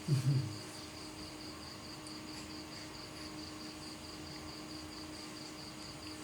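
Cricket chirping steadily in an even, rapid high pulse, over a faint steady hum. A short low voice-like sound comes right at the start.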